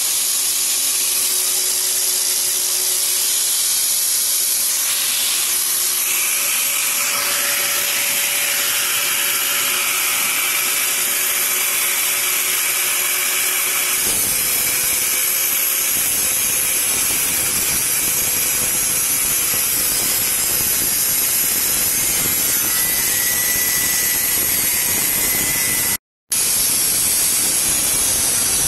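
Angle grinder with an abrasive cut-off disc, mounted on a lathe, cutting into a spinning steel workpiece: a loud, steady grinding whine with hiss. A low steady hum underneath stops about halfway, and the sound drops out briefly near the end.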